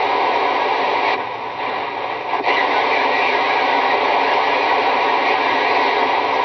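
CB radio static: a steady hiss of band noise through the receiving radio's speaker with no voice on it, dipping in level briefly about a second in, then coming back steady.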